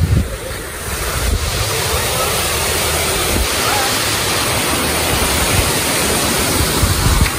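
Steady rushing of water pouring from an outfall in a stone wall down into a river, with wind buffeting the microphone in gusts. The rushing grows fuller about a second in and then holds.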